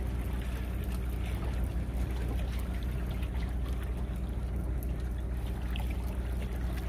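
A steady low hum of a running motor, with water trickling faintly.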